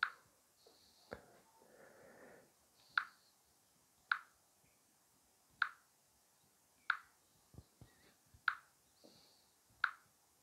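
Fingertip taps on a Samsung Galaxy S22-series smartphone touchscreen, each giving a short sharp click, about seven taps spaced a second or so apart, with a few duller knocks in between.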